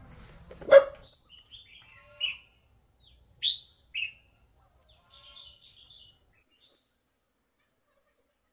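A dog barks once, sharply, about a second in. Small birds then chirp in short, scattered calls for the next few seconds, and near the end a faint, steady, high insect trill comes in.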